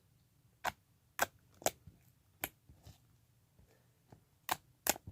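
Light blue homemade slime being pressed and stretched by hand, making a series of sharp, irregular pops and clicks, about seven in five seconds.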